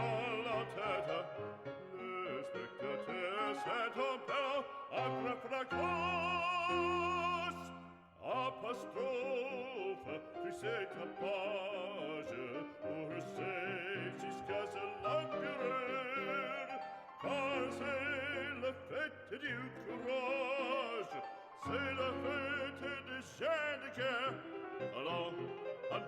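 Background music: an operatic singing voice with vibrato over instrumental accompaniment.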